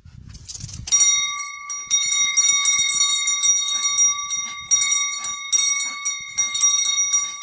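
Small metal wall bell rung repeatedly by a small terrier tugging at its hanging cord. From about a second in there are rapid, uneven clanging strikes over a steady ringing tone.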